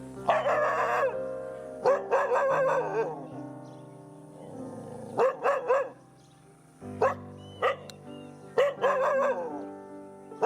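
Dogs barking repeatedly in short bursts over background music.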